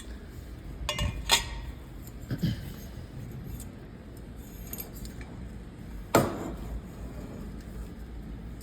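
Hard parts being handled: a few short knocks and clinks as vacuum cleaner wands are moved and set down, the loudest one about six seconds in.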